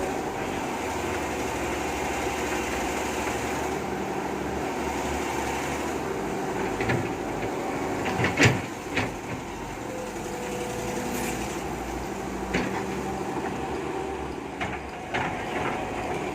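Hitachi UH07 hydraulic excavator running steadily, with a few sharp metallic knocks, the loudest about eight seconds in. The machine is being tried out because it is short of power, a fault the mechanic puts down to the engine or the hydraulic pump.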